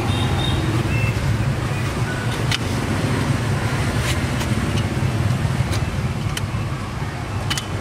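Steady low hum over a constant background noise, with a few light, sharp clicks as hands handle copper tubing and wiring around a refrigerator compressor.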